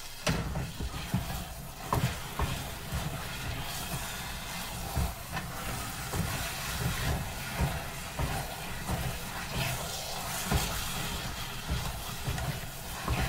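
A wooden spoon stirs thick barley-flour porridge (genfo) in an enamel pot. Its irregular low thuds and knocks against the pot come several times a second over a steady hiss.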